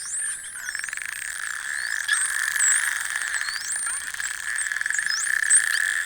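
A group of Atlantic spotted dolphins heard underwater through a hydrophone: many short whistles rising and falling in pitch, overlapping with rapid click trains and buzzes, over a steady high hum.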